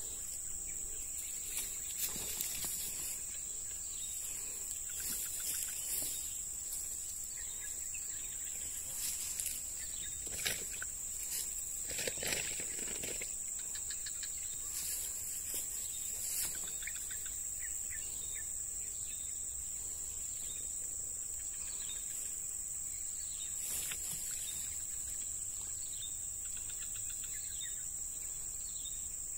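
Steady, high-pitched drone of insects, with scattered short rustles and knocks from handling and movement in the grass.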